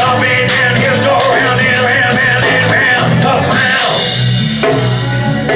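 Rock band playing live: a lead line wavering in pitch over bass and a steady drum beat.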